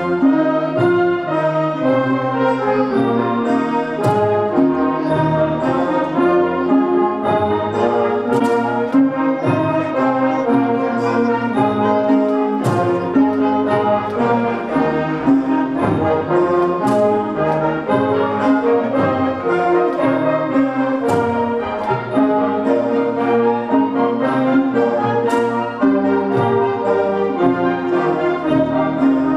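An orchestra with prominent brass plays music arranged to accompany a Khon masked dance-drama, with a sharp crash about every four seconds and light high ticks keeping time.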